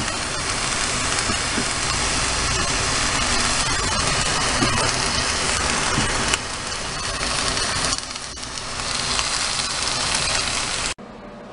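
Chicken breast strips sizzling in a hot frying pan as a steady hiss, with a wooden spatula scraping and knocking against the pan now and then. The sizzling cuts off abruptly near the end.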